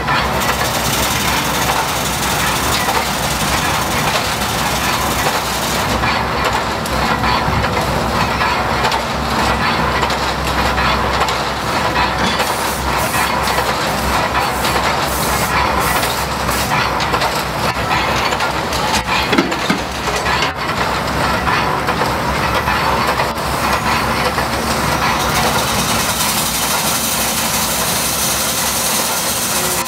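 Steam crane with a clamshell bucket working: its steam engine runs with a steady clatter of knocks from its gearing and cables as it swings and lowers the bucket. Steam hisses, louder in the first few seconds and again near the end.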